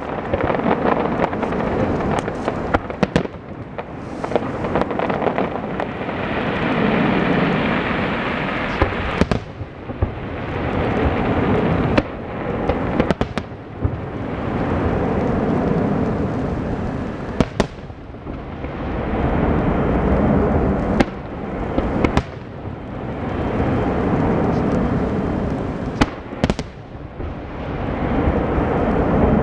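Aerial firework shells of a professional display bursting: many sharp bangs and cracks over a dense rolling rumble that swells and fades every few seconds.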